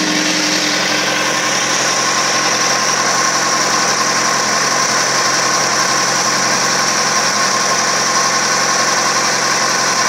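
Honda CBR600RR's inline-four engine idling hot, at the temperature where the cooling fan should cut in, with the electric radiator fan running in a steady whir.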